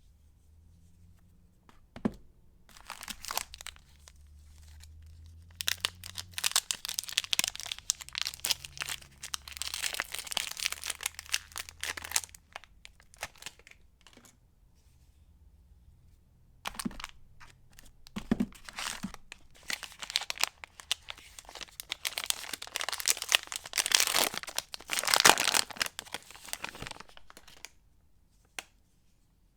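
Soap wrappers being torn open and crinkled by hand in two long stretches of crackling rustle, each starting with a sharp click.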